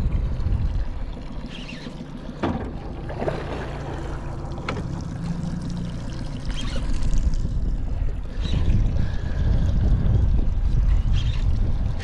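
Wind buffeting the microphone over water splashing and lapping around a small fishing boat, with a couple of sharp knocks, the first about two and a half seconds in.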